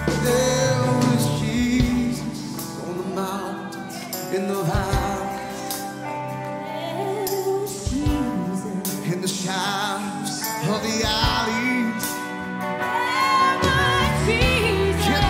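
Worship song with a band and a singing voice. The deep bass drops away a couple of seconds in and comes back in near the end.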